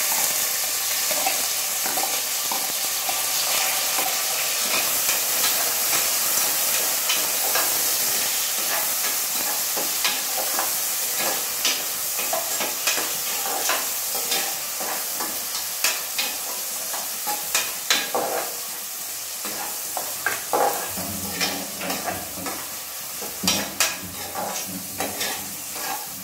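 Sliced onions sizzling in hot oil and ghee in an aluminium pressure cooker as they are sautéed towards brown, with a steel ladle scraping and tapping against the pot while stirring. The ladle strokes come more often from about the middle, and the sizzle eases a little near the end.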